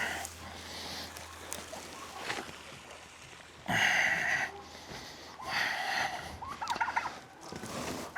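Farm animals calling, with a turkey gobbling. The loudest call comes about four seconds in, another follows near six seconds, and a quick rattling call comes near the end.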